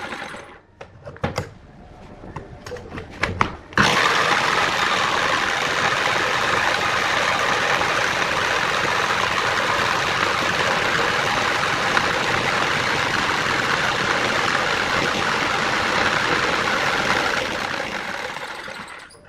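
A few clicks and knocks of handling, then about four seconds in a power tool starts running steadily and runs on until it fades out near the end.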